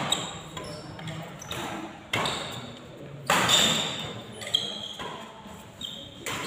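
Badminton rackets striking the shuttlecock in a fast doubles rally: four sharp hits a little over a second apart, echoing in the sports hall. Short high squeaks of shoes on the court fall between the hits.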